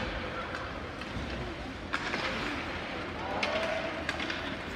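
Ice hockey play in a rink: skate blades scraping on the ice under a steady hiss, with one sharp clack of a stick or puck about two seconds in and a short shout from a player or spectator.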